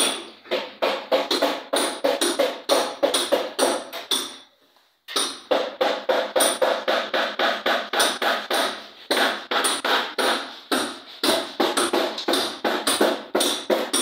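Background music with a fast, steady percussive beat of about four strikes a second. It breaks off briefly about four seconds in, then carries on.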